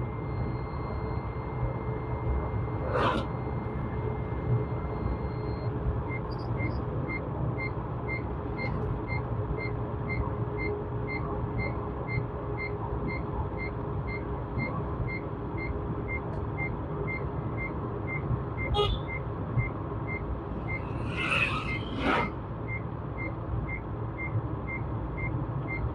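Inside a car on the move: steady low road and engine rumble, with a thin high electronic tone that turns about six seconds in into a warning beep repeating about twice a second. A few brief knocks, the loudest about 22 seconds in.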